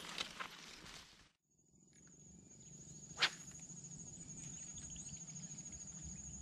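Footsteps scuffing through brush for about the first second, then a steady high-pitched insect trill with a fast pulse, broken once by a single sharp click about three seconds in.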